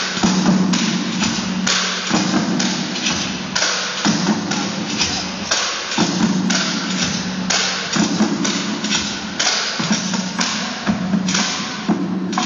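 Bucket and drum percussion played by a group: sticks striking in a fast, steady rhythm of sharp hits, with a lower held tone returning in stretches of about two seconds.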